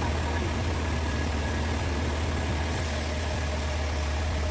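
Sawmill engine idling steadily with an even low hum.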